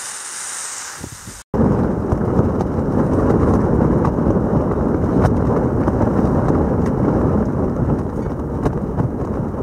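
Strong wind buffeting a tent: a loud, steady deep rush with scattered sharp ticks on the fabric. It begins abruptly about a second and a half in, after a softer hiss.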